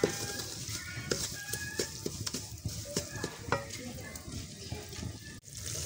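Wooden spatula scraping and knocking against a steel karahi as semolina is stirred and roasted in oil over a low flame, with a light sizzle. The sound drops out briefly near the end.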